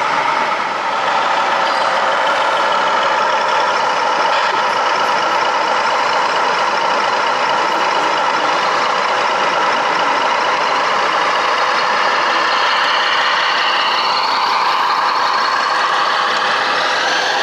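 Scale RC truck running, most likely a sound module's small speaker playing a simulated truck diesel engine: a steady engine note with little bass, and its pitch rising and falling briefly near the end.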